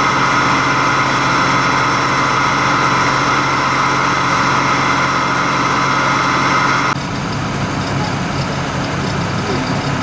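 Fire truck engine running steadily, with a steady higher whine over it. About seven seconds in the sound changes abruptly to a quieter engine idle.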